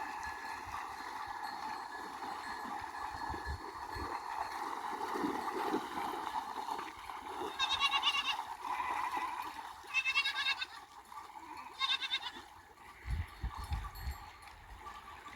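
Sheep bleating three times, about two seconds apart, in the second half, over the steady rush of a river.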